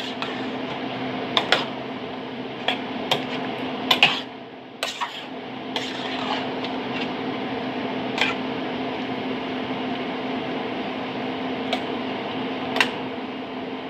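A metal spoon clinking and scraping against a stainless steel cooking pot in scattered knocks while the sauce is stirred, over a steady hum.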